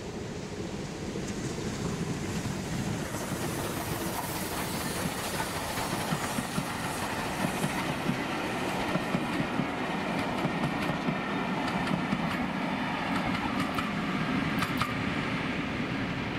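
Double-headed steam train, Bulleid West Country Pacific Eddystone and BR Standard tank 80136, running past, with its wheels clicking over the rail joints. It grows louder and the clicking is strongest in the second half.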